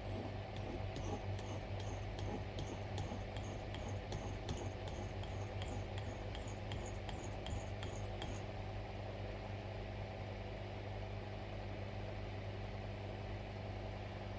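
Knife blade stroked back and forth on a sharpening stone in short, quick scrapes, about two to three a second, concentrating on the tip to raise a burr; the strokes stop about eight seconds in. A steady low hum runs underneath.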